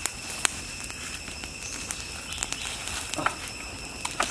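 Wood campfire crackling, with irregular sharp pops as the burning sticks are poked and stirred with a stick.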